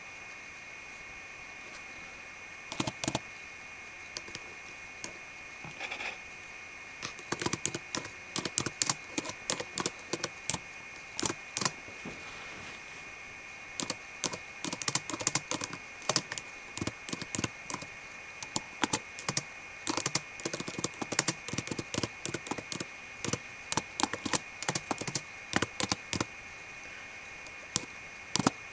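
Typing on a computer keyboard with very long fingernails: sharp clicks of nail tips and keys, a few scattered taps at first, then quick irregular flurries of clicking with a short break about halfway. A faint steady high whine sits underneath.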